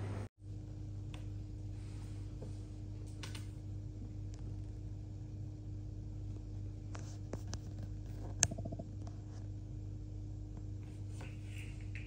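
Quiet room tone with a steady low electrical hum, broken by a few light clicks and taps and one sharper click about eight seconds in.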